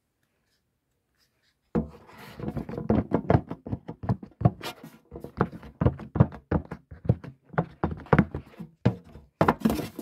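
Pink silicone push-pop fidget toy having its bubbles pressed through, a quick series of pops starting about two seconds in, roughly three a second.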